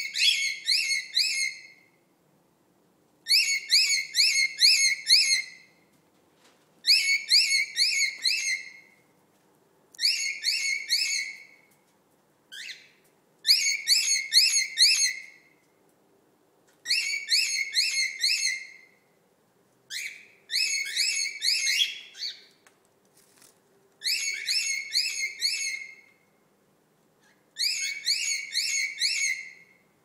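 Male cockatiel giving its mating call: bursts of rapid, repeated high whistled notes, each about two seconds long, coming about every three and a half seconds. It is the courtship call that males use to attract females.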